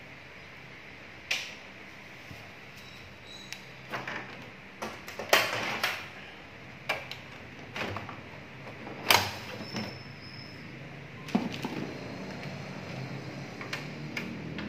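Plastic clicks and knocks from a Sharp AR-6020D photocopier as its front cover and side door are opened and parts inside are handled: about a dozen separate sharp clicks, the loudest about five and nine seconds in.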